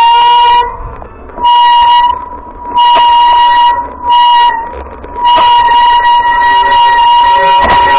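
Brakes squealing loudly on a downhill, a piercing steady shriek that comes in four short bursts and then holds without a break from about five seconds in; the owner puts it down most likely to worn brake pads.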